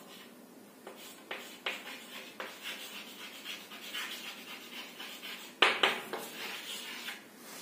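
Chalk writing on a chalkboard: a run of short, scratchy strokes and taps as a word is written, with two louder strokes late on.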